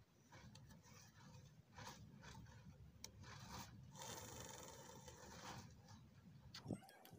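Faint rubbing and scraping with a few scattered clicks, and a steadier hiss for about a second and a half in the middle.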